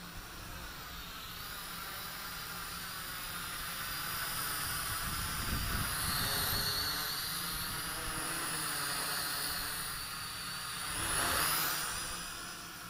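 JJRC H8D quadcopter's propellers whining as it flies over close, the pitch wavering as the motors adjust. It grows louder toward the middle and peaks again sharply about eleven seconds in as it passes near, then fades.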